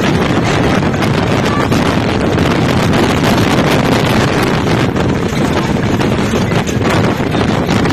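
Wind rushing over a phone's microphone from a vehicle travelling at speed, mixed with steady road noise; a loud, even rush with no breaks.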